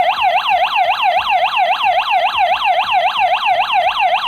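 Electronic siren of a battery-powered infrared motion-sensor alarm sounding in its alarm (security) mode: a loud, fast warble sweeping down and up in pitch about four times a second, set off by detected movement.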